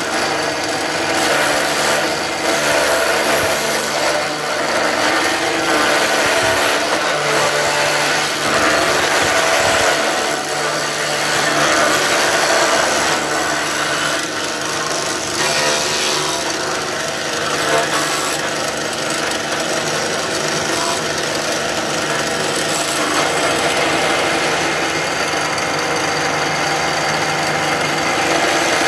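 Overhead spindle router running and cutting along the face of a Kashmir willow cricket bat blade: a steady motor tone under a continuous rasp of wood being shaved away.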